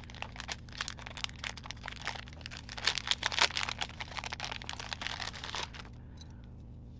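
Clear cellophane wrapper crinkling and crackling as hands open it and pull it off, loudest about halfway through, stopping abruptly near the end.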